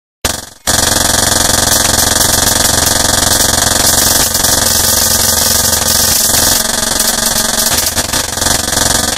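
Harsh electronic interference noise: a dense wall of hiss and buzz over a steady, low, engine-like hum, coming in abruptly after a moment of silence and cutting off suddenly near the end.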